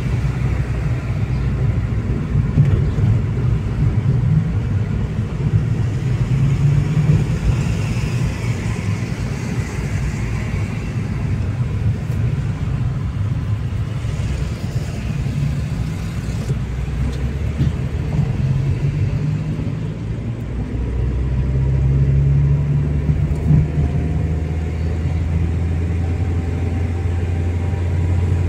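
Steady low rumble of a car's engine and tyres on the road, heard from inside the moving car. Near the end a faint rising whine comes in as the engine note climbs.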